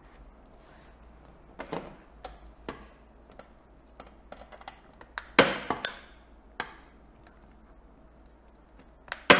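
Staple gun driving staples into a wooden stretcher frame: two loud snaps in quick succession about five and a half seconds in, a lighter one soon after and another loud snap near the end, with softer clicks earlier as the tool is set in place.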